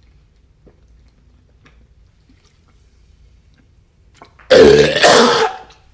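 A woman's loud, rough belch about four and a half seconds in, lasting about a second, after she has gulped down a can of soda. It comes with acid reflux and brings up a little vomit.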